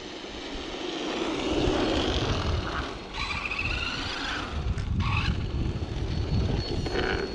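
Electric RC car (Arrma 6S Senton) driving, its brushless motor and drivetrain whining in bursts, over a constant low rumble of wind on the microphone.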